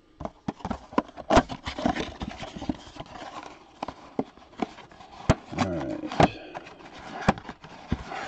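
Cardboard Panini Flux blaster box being torn and pried open by hand: a run of irregular crackles, clicks and scrapes as the flaps bend and tear.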